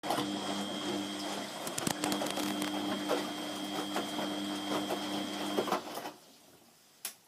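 Beko front-loading washing machine tumbling laundry during its third rinse: the drum motor's steady whine with water sloshing and splashing, stopping suddenly about six seconds in. A single short click follows about a second later.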